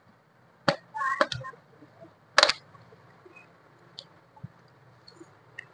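Small cardboard cube box handled and worked open by hand: scattered sharp taps and clicks of cardboard. There is a cluster of them about a second in, the loudest about two and a half seconds in, and faint ticks later.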